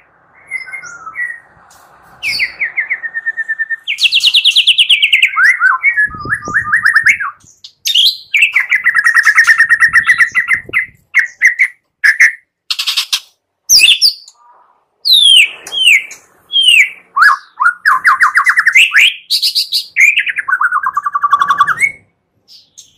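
White-rumped shama (murai batu) singing a loud, varied song of fast rattling trills, sharp down-slurred whistles and short high notes, with brief pauses between phrases.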